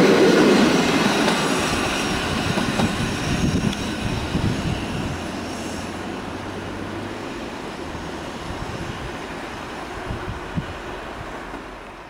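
Passenger coaches of a departing intercity train rolling past on the rails, the rumble fading steadily as the train pulls away. A few sharp wheel clacks over the rail joints stand out.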